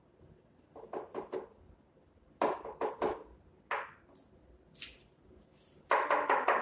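Knocks and clatter of plastic ornament balls and craft paint bottles being handled and set down on a table, coming in short clusters of taps. A louder, denser stretch starts near the end.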